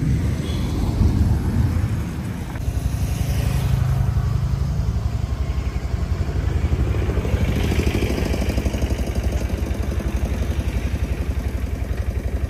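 A motor vehicle's engine running with a fast, even low pulse, after a heavier low rumble in the first couple of seconds.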